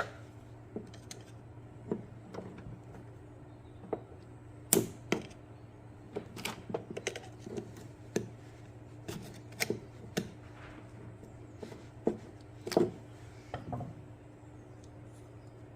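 Irregular clicks, taps and knocks of hand tools and plastic parts being handled while a car headlight unit is taken apart. Two louder knocks come about five seconds in and again near thirteen seconds. A steady low hum runs underneath.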